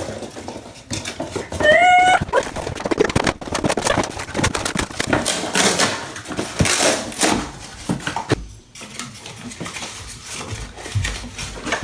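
Rustling and knocking from handling a lava lamp's packaging and parts. About two seconds in comes one short, high, rising whine.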